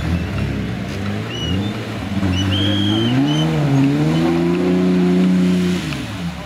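Off-road 4x4's engine revving under load as it crawls through a muddy ditch. The revs climb about two seconds in, dip briefly, hold high for about two seconds, then drop off near the end.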